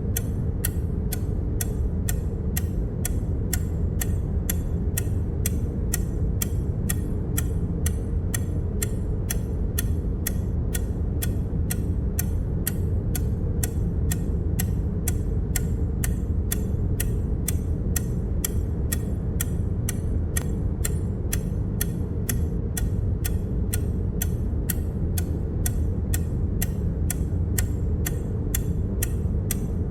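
A click sound effect repeating evenly about twice a second, each click marking the count going up by one, over a steady low hum.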